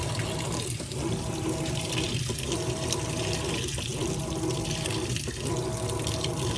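Whirlpool Cabrio top-load washer filling: a steady stream of water pours from the fill inlet into the tub onto a bulky quilt load, adding more water because the quilt floats and won't soak. There is a regular dip in the sound about every one and a half seconds.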